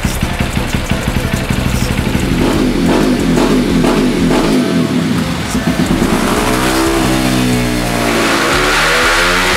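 Bored-up Honda CRF150L single-cylinder four-stroke engine running on a roller dyno: an uneven, pulsing low-rev note at first, then a steady note, then revving up with the pitch climbing from about six seconds in.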